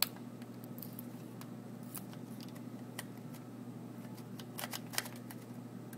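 Scattered small clicks and rattles of plastic and metal parts as the Dell 1800MP projector's power supply assembly is handled and worked loose, over a steady low hum. The sharpest click comes right at the start, with a few more near the end.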